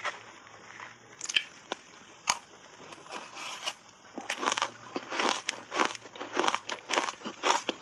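Dry shaved ice coated in matcha powder being bitten and chewed. A few scattered crackles come first, then from about four seconds in a steady crunching of roughly three chews a second.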